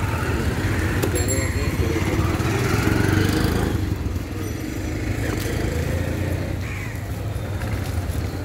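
Steady low engine rumble with indistinct voices in the background and a couple of sharp knocks.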